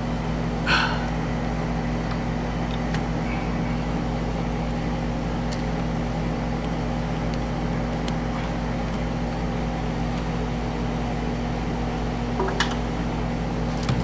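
A steady low electrical-sounding hum made of several even tones. Over it come a few light clicks and ticks as the wires are bent and hooked onto a light switch's terminal screws.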